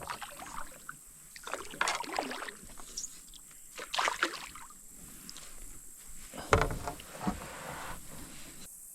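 Paddle craft on the water: irregular paddle strokes and splashes with water moving around the hull, and a sharper knock against the boat about six and a half seconds in.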